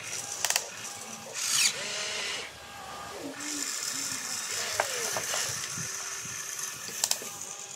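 Small electric motors and gearboxes of a radio-controlled toy excavator running in spells as it swings and moves its boom and arm, giving a high-pitched buzz with gear chatter. A couple of sharp clicks come about half a second in and near the end.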